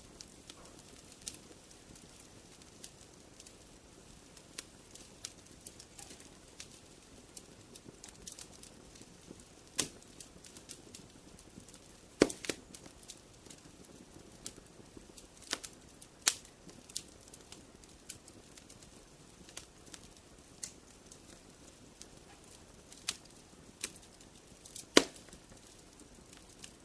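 Wood fire burning with a soft steady hiss and irregular crackles, broken by a few sharp, louder pops, the loudest about a third of the way in and near the end.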